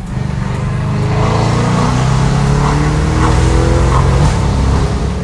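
Audi C7 S7's big-turbo twin-turbo 4.0 V8 under hard acceleration, heard from inside the cabin: the engine note climbs steadily in pitch and breaks off about four seconds in.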